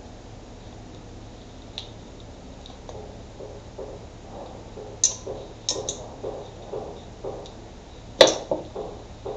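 Small scissors snipping plant sprigs: a few sharp clicks, the loudest near the end, over a run of soft knocks about two a second that begins about three seconds in.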